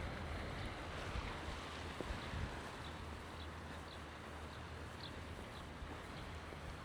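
Wind buffeting the microphone over a steady outdoor rush of sea air, with faint short high chirps every half second or so.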